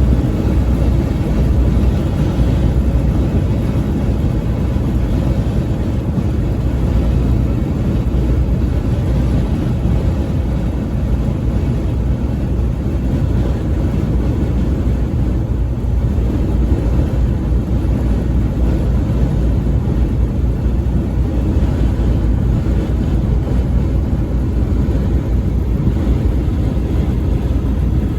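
A truck driving at highway speed: a steady low rumble of engine and road noise.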